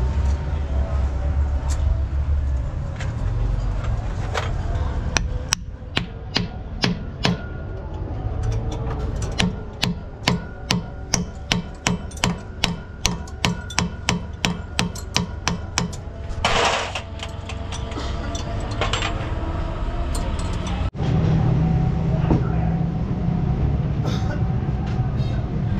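Hammer blows in a quick, steady run, about three a second for roughly ten seconds, over a steady low rumble.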